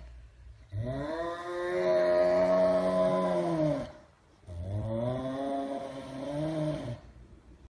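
Serval growling with a piece of raw chicken held in its mouth: two long, low growls of about three seconds each, rising in pitch at the start and dropping at the end, a cat guarding its food.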